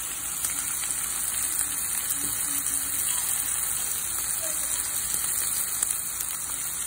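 Strip steak frying in a pan with onions and green and red peppers: a steady sizzle with a fine crackle.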